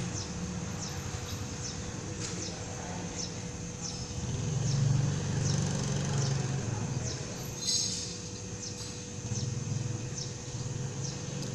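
Outdoor ambience: small birds giving short, high, falling chirps again and again, over a steady low rumble that swells for a few seconds in the middle.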